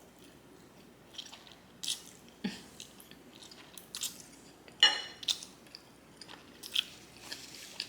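Close-up mouth sounds of someone chewing a forkful of creamy cacio e pepe pasta with chicken: irregular wet smacks and clicks, the loudest and sharpest about five seconds in.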